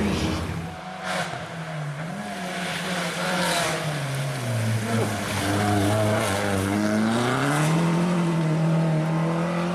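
Turbocharged Opel Corsa OPC rally car's engine running under throttle. Its pitch sinks to a low hum in the middle, then climbs again near the end.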